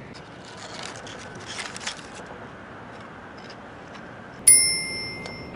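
Steady running noise inside a Shinkansen car, with rustling and clinks from a foil snack bag and a beer can being handled on the tray table in the first two seconds. About four and a half seconds in, a bright on-board chime strikes suddenly and rings away over about a second: the signal that a station announcement follows.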